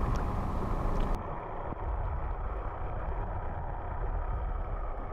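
Muffled low rumble of water heard through an underwater camera housing. About a second in, the high hiss drops away and only the dull rumble is left.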